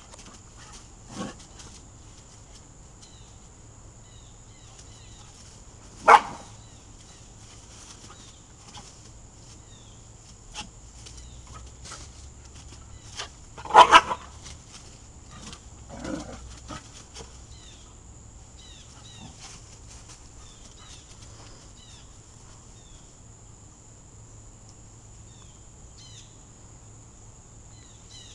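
Two dogs, a weimaraner puppy and a Rottweiler/Chow mix, play-fighting, with a few short barks: one about six seconds in, a louder double one near the middle, and a weaker one a couple of seconds after it.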